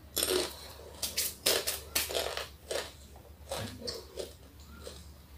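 Crunching of a Jolo Chip, a crisp tortilla chip, being bitten and chewed: a quick run of irregular crunches that thin out toward the end.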